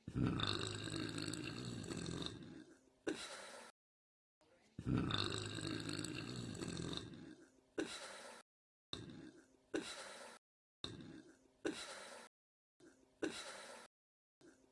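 A young woman's slow, deep burps: two long ones of about two and a half seconds each, the first at the start and the second about five seconds in. Shorter, quieter sounds follow, broken by abrupt dead silences between clips.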